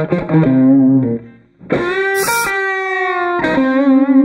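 Intro music: distorted electric guitar playing short riffing notes, dropping out briefly just over a second in, then a held chord before the quick notes return.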